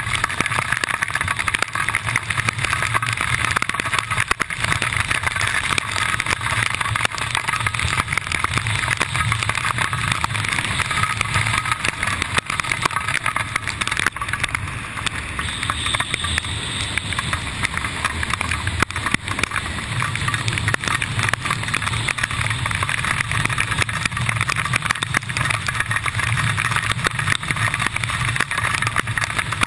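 Steady wind rushing over a GoPro action camera under an open parachute canopy: a loud low rumble with a rough hiss and fine crackle throughout.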